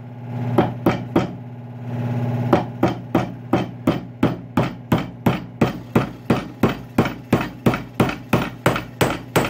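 Hammer striking a metal wedge being driven into the top of a walnut hammer handle, spreading the wood to lock the head on. A few blows, a short pause, then a steady run of quick, sharp taps at about three a second.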